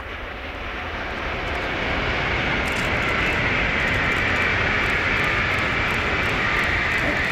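Tokaido Shinkansen bullet train passing at high speed. A rushing noise builds over the first two seconds, then holds steady with a high whine that sinks slightly in pitch near the end.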